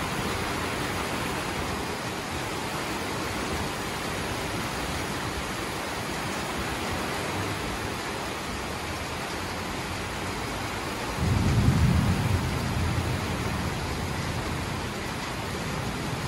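Heavy downpour, a steady hiss of rain. About eleven seconds in, a low rumble of thunder swells for a second or two and fades back into the rain.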